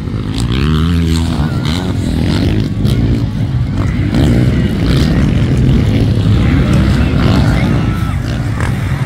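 Several motocross bikes racing, their engines revving with the pitch repeatedly rising and falling as the riders accelerate and back off over the track.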